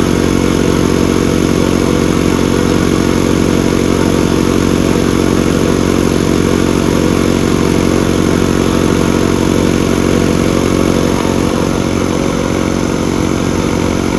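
Portable 5.5 HP piston air compressor with a 120-litre tank running steadily, a loud, even machine drone that eases off slightly near the end.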